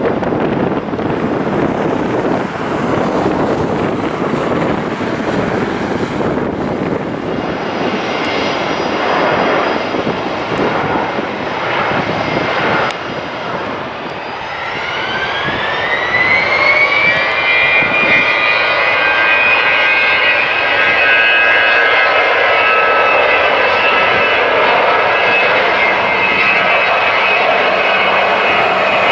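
Jet airliner's turbofan engines spooling up: a rushing noise, then about halfway through a whine that rises in pitch for a few seconds and settles into a steady, loud high-thrust whine.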